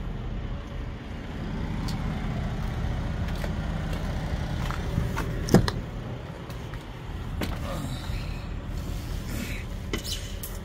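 Steady low rumble of an idling engine, with scattered handling knocks and clicks and one sharp clunk about five and a half seconds in, as a semi truck's cab door is opened and the cab is climbed into.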